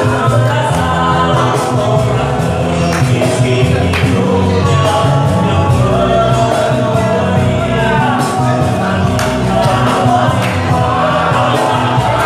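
Live band playing a song: a man singing into a microphone over guitars and a cajón, steady and loud throughout.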